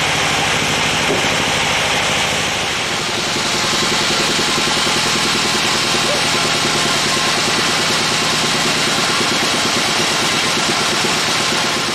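Large vertical band sawmill running steadily between cuts: its drive engine drones with an even, rapid throb while the blade runs.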